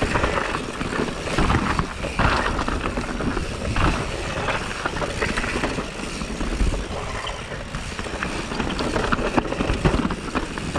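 Mountain bike riding down a rocky dirt trail: knobby tyres crunching over gravel and rocks, with a constant rush of noise and frequent rattles and knocks from the bike.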